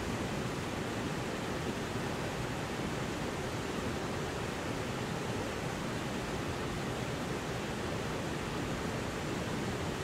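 Steady rush of a shallow river cascading over rock ledges in small falls: an even, unbroken water noise.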